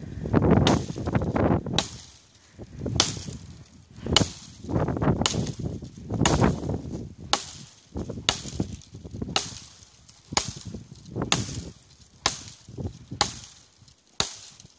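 Fiskars brush axe chopping into small branches and saplings: a steady run of sharp blade strikes into wood, about one a second, some with rustling of the branches in between.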